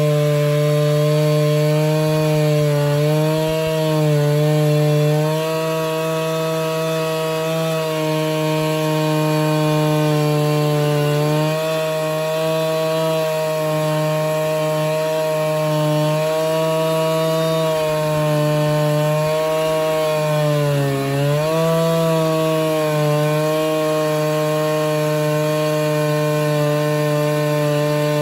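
Husqvarna 395XP two-stroke chainsaw on a Granberg Alaskan mill, running at high revs while ripping lengthwise through a fir log. Its pitch sags under the cutting load a few times, most deeply about three quarters of the way through, then recovers.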